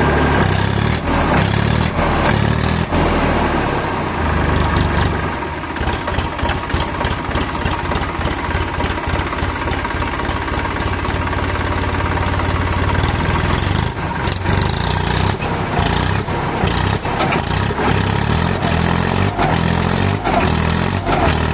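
Heavy diesel engine running, a steady low throb whose pace changes, with a faster, even pulse through the middle stretch and a few sharp knocks.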